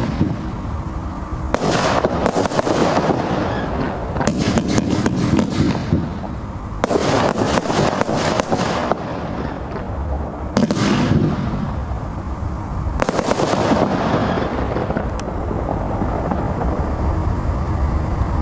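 A 25-shot firework cake firing in volleys of loud bursting reports: clusters of sharp cracks every few seconds, with rumble between them. The last volley comes a little past two thirds of the way in, then the sound dies to a fading rumble.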